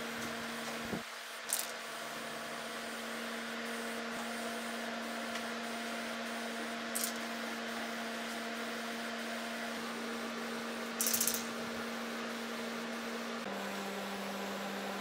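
Aerosol spray-paint can hissing in brief bursts, about three times, over a steady hum that drops slightly in pitch near the end.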